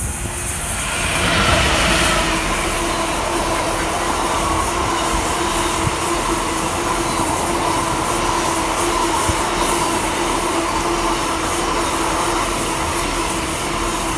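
Diesel freight locomotive passing through at speed, loudest about two seconds in, then a long train of tank wagons rolling by with steady wheel-on-rail noise and a steady tone running underneath.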